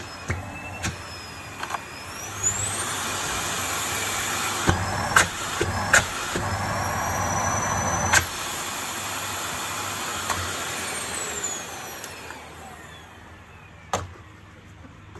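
Electrolux UltraSilencer vacuum cleaner motor spinning up with a rising whine about two seconds in, running steadily, then winding down with a falling whine near the end. Sharp clicks come in between, the loudest in the middle of the run.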